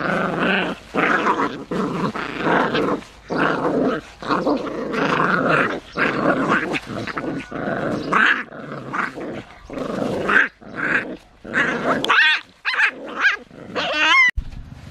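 Puppies growling in repeated short bursts as they play-fight, with a few high, wavering yelps near the end.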